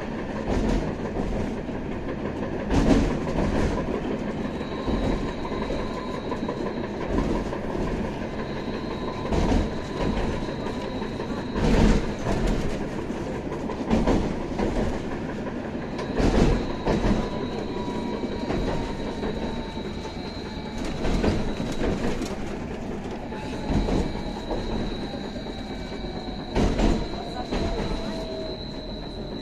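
Inside a BKM 802E tram in motion: a steady running rumble with the wheels knocking over rail joints every couple of seconds. A thin high whine comes and goes, and a lower whine falls in pitch in the second half.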